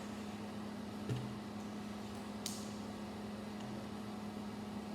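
Plastic Lego bricks being handled and pressed together: a soft knock about a second in and one sharp click about halfway, over a steady low hum.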